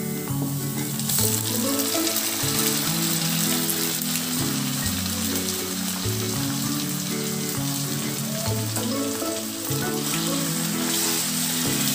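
Marinated mutton pieces sizzling in hot oil and fried onions in a kadai, the sizzle jumping up about a second in as the meat goes in, then stirred with a spatula near the end. Soft background music with held notes underneath.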